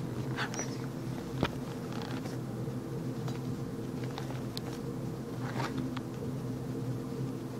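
Two small dogs scuffling at play on carpet: scattered light clicks and rustles, the sharpest click about a second and a half in, over a steady low hum.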